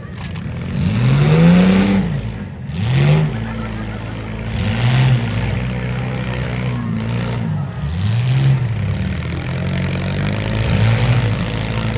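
Demolition derby car engines revving hard and dropping back, about five rises and falls, over a steady engine drone and noisy hiss.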